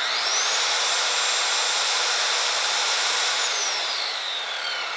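Corded circular saw spinning free with no load: the motor whine climbs to full speed in the first half second and holds steady, then the trigger is released about three and a half seconds in and the blade winds down with a falling whine.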